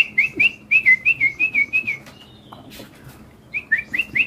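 Caged songbird singing two quick runs of clear, whistled notes, about five a second, each run lasting about two seconds, with a short pause between.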